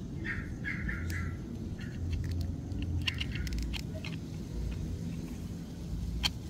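Small sharp plastic clicks and taps as the joints of a plastic action figure are moved by hand, a handful in the middle and a single louder one near the end, over a steady low outdoor rumble.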